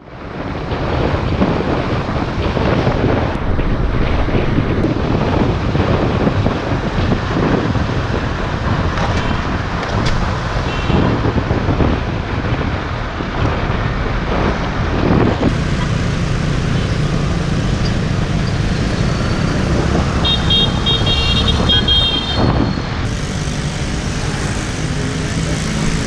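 Wind buffeting the camera microphone: a loud, rough, ever-shifting rumble heaviest in the lows, with a brief faint high-pitched sound about twenty seconds in.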